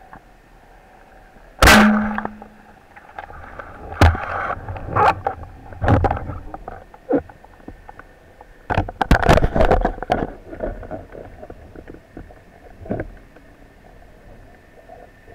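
Underwater knocks and clunks from a spearfisher's gear during a breath-hold dive: one loud sharp hit about two seconds in with a short low hum after it, then scattered knocks and rattles, with a thicker cluster about nine seconds in.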